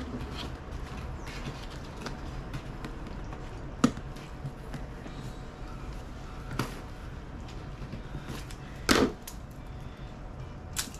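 Scissors scraping and jabbing at a taped cardboard box, with scattered clicks and knocks of the cardboard: a sharp knock about four seconds in and a louder scraping thump about nine seconds in.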